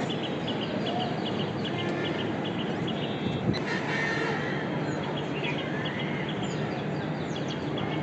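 Budgerigars chirping and chattering: quick runs of short high chirps with some rising and falling whistles, over a steady background hiss. A single sharp knock about three and a half seconds in.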